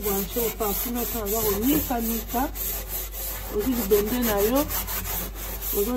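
Rhythmic scrubbing strokes across an oven's enamel interior coated in baking soda paste, about three or four strokes a second. A voice hums a wavering tune over the scrubbing.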